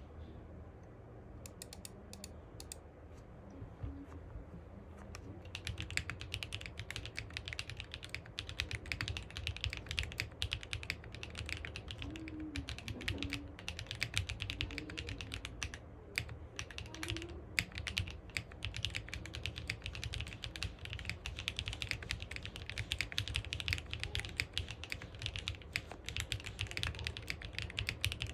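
Typing on a Zoom65 v2.5 mechanical keyboard with lubed Gateron Milky switches. A few separate keystrokes come first, then steady, fast typing from about five seconds in.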